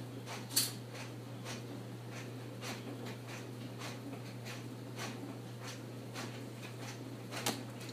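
Light, irregular clicks and taps, about one or two a second, from small objects being handled, the sharpest about half a second in and another near the end, over a steady low hum.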